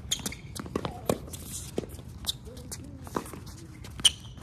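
Tennis rally on a court: sharp racket-on-ball hits with a brief ringing ping, one just after the start and the loudest about four seconds in. Quieter knocks of ball bounces and footsteps fall in between.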